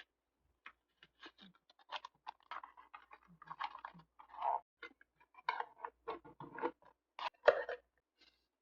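Paper being handled for diary decorating: a run of short, irregular crinkles and rustles, densest in the middle and loudest about seven and a half seconds in.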